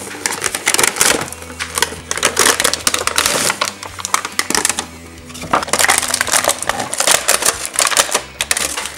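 Toy packaging being opened: a cardboard box flap torn open and a clear plastic blister tray pulled out, crinkling and crackling in dense clusters, over background music.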